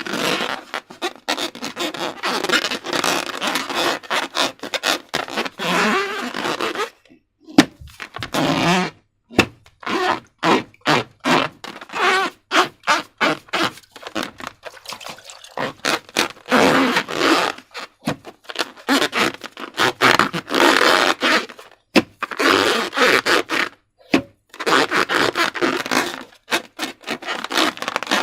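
Sticky slime squelching and crackling as it is squished and stretched by hand, in rapid uneven bursts of wet clicks. It breaks off briefly a few times.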